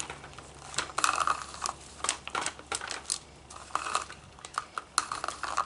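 Irregular plastic clicks and rattles from a string trimmer's bump-feed head being handled and twisted.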